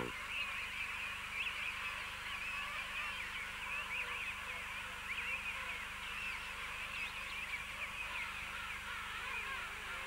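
Dense chorus of a king penguin colony: many birds calling at once, a steady mass of short overlapping rising and falling calls.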